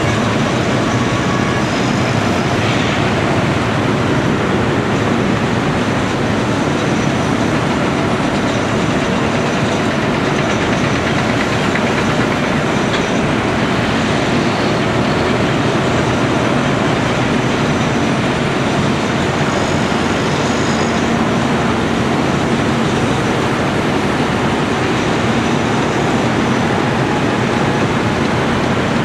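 Caterpillar 345C L excavator's diesel engine running, a loud, steady, even noise throughout.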